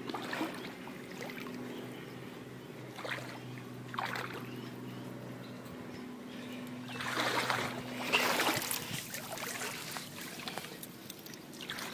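A person wading through floodwater, the water swishing and splashing around the legs in a few separate strides, the longest near the middle. A faint steady hum runs underneath.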